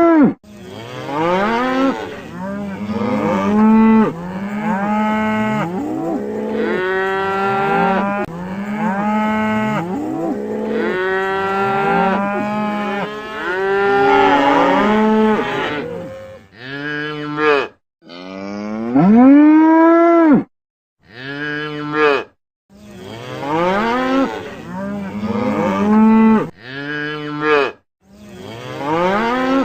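Cattle mooing again and again, the calls overlapping, each one rising and then falling in pitch. In the second half the sound cuts off abruptly several times between calls.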